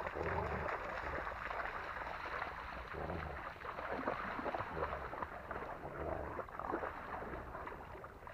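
Shallow lake water splashing and sloshing as a Saint Bernard and a person wade and tug on a toy, with short low rumbles every second or so.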